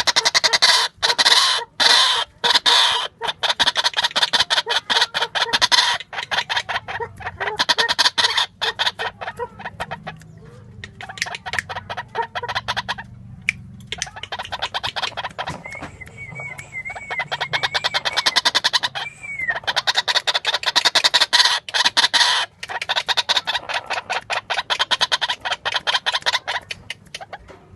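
Female white-breasted waterhen calling persistently, rapid repeated notes in runs of a few seconds broken by short pauses.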